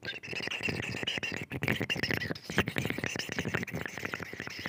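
Food sound effect: a dense run of quick, crackling clicks over a steady high hiss, starting suddenly after a silence.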